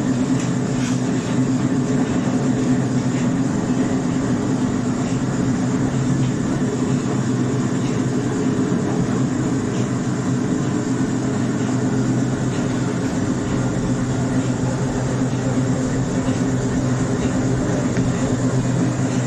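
A steady mechanical drone with a hiss over it, unchanging and without pauses.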